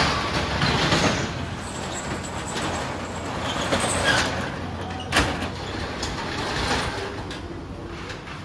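Corrugated metal roller shutter being pushed up by hand, rattling as it rolls, with a sharp clank about five seconds in. A steady low hum runs underneath.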